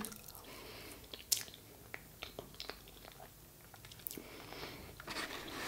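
Quiet close-up chewing of a spoonful of soft, moist red velvet sponge cake with berry jam filling: soft wet mouth sounds with scattered faint clicks, a couple of them sharper.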